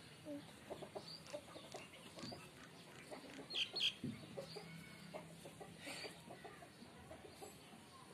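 Chickens clucking softly in short scattered calls, with a louder, sharper pair of sounds a little past the middle.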